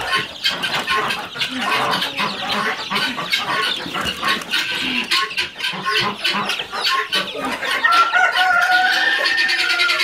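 Many baby chicks peeping constantly in a brooder, a dense chorus of short, high, overlapping cheeps. Near the end a steadier held tone with a slight rise in pitch comes in under the peeping.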